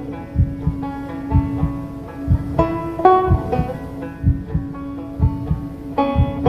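Slow banjo picking: plucked notes ring out one after another over a held low note.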